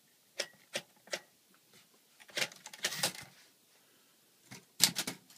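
1946 Smith-Corona Silent floating shift typewriter's mechanism clicking and clacking as paper is loaded and the carriage is set up: three single clicks, then a short cluster of clacks, then a quick run of sharp key strikes near the end as typing begins.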